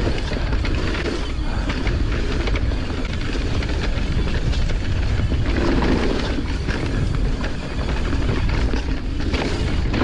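Pivot Shuttle e-mountain bike descending a dirt singletrack at speed: tyres rolling over the dirt and the bike rattling over bumps, with a heavy rumble of wind and jolts on the camera microphone.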